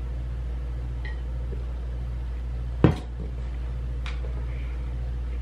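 Steady low room hum, with one sharp knock about three seconds in as a stainless steel tumbler is set down on a desk, and a faint tick or two after it.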